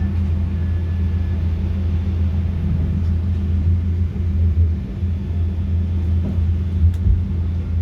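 Steady low drone of an airliner heard from inside the cabin, with engine and airflow noise.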